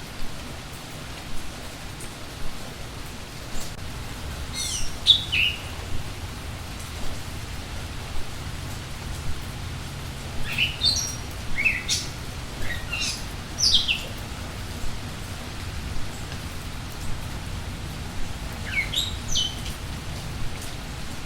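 Steady rain falling, with songbirds singing short phrases of quick downward-sweeping whistled notes in three bouts: about five seconds in, in a longer run around ten to fourteen seconds in, and again near the end.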